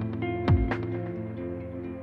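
Background music: held chords with a deep drum hit that drops in pitch, one about half a second in.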